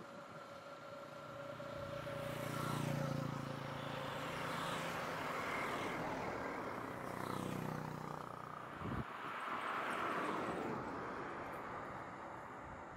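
A motorcycle and a truck drive past close by, engine hum and tyre noise swelling and fading over the first several seconds. A car follows, passing about ten seconds in, with a short low thump just before it.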